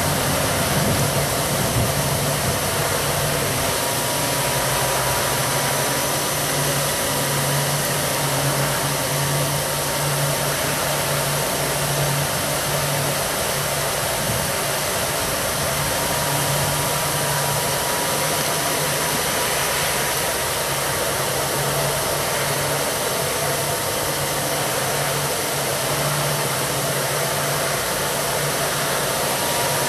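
A hair dryer runs steadily as the blower of a charcoal brake-drum forge, forcing air through a pipe into the fire to keep it hot. It makes an even rushing whirr with a low hum.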